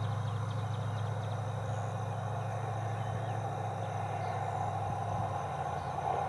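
Steady outdoor ambience: a constant low hum under a higher, even hiss, with a few faint, short high chirps.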